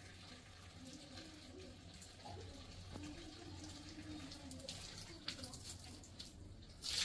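Water pouring from a reverse-osmosis unit's outlet into a plastic filter housing, filling it, over a low steady hum. A short sharp noise comes near the end.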